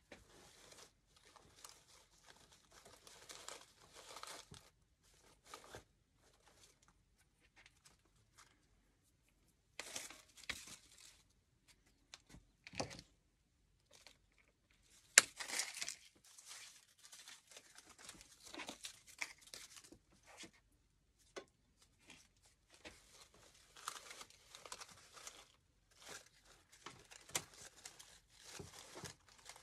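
Rustling and crinkling of an artificial red geranium stem and leaves being handled and worked into a wreath, in short scattered bursts, with one sharp click about fifteen seconds in.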